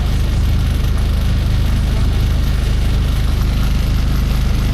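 Diesel engine of a DAF SB220 single-decker bus with Ikarus Polaris body, heard from inside the saloon, running at a steady, deep, even drone with no change in pitch.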